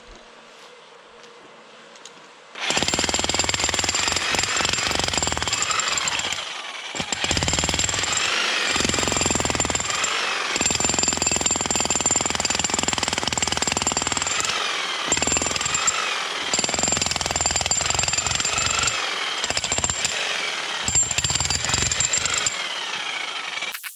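Electric demolition hammer breaking up rubble. It starts about two and a half seconds in and hammers in runs of a few seconds, with brief pauses between them.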